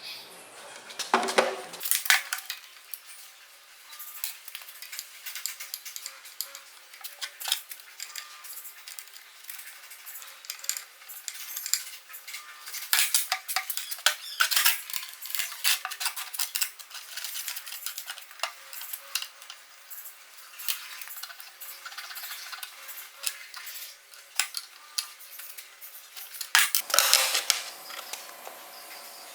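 Metal parts clinking and clattering against each other as they are handled, in irregular clusters of sharp clinks with a louder burst near the end. No power tool runs.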